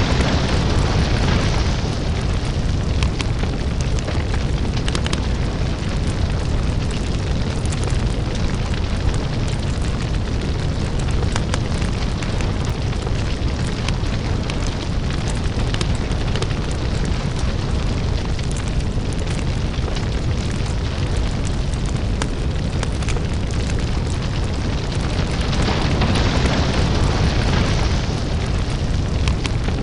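Crackling lava fire ambience: a deep, steady rumble under dense crackles and pops. A hissing swell comes in near the start and again about 26 seconds in.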